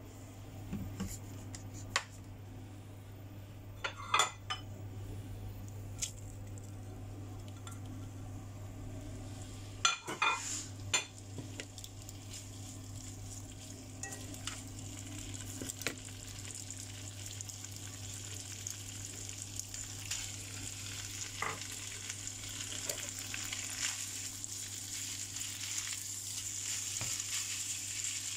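Beef, pork intestine and scrambled egg sizzling in a hot frying pan as they are stirred, with a utensil knocking and clinking against the pan a few times, loudest about four and ten seconds in. The sizzle grows louder toward the end, over a steady low hum.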